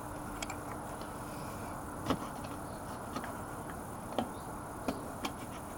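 About six light, irregular ticks over a steady low hiss: the last of the old engine oil dripping from the drain hole of a Honda VT125 Shadow's engine as it finishes draining.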